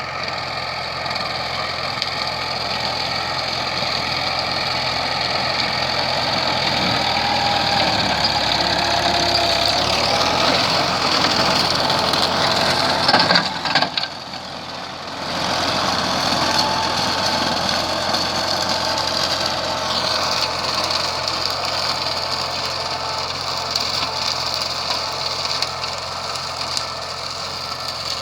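Valmet 85id tractor's diesel engine roaring loud as it drives a rotary mower, running steadily. About halfway through there is a short surge, then the sound drops away for a couple of seconds before picking up again.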